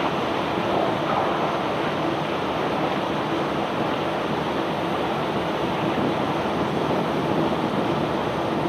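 Self-unloading barge's unloading machinery running, a steady rushing noise with a faint low hum.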